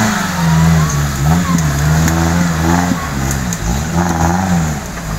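Off-road 4x4's engine revving, the revs rising and falling several times.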